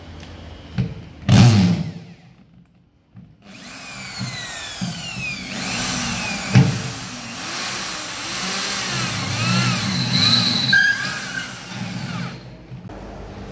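Electric drill with a 10 mm bit boring through a stainless steel sink deck: a short burst about a second in, then a longer run of several seconds in which the bit whines and squeals against the metal in sliding, wavering pitches, stopping near the end.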